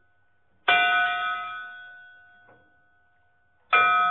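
Bell-like chime struck twice, about three seconds apart, each stroke ringing and slowly fading.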